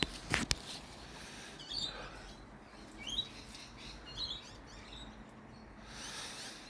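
Small birds chirping: short, high, upward-sliding chirps scattered through, with a couple of sharp clicks near the start.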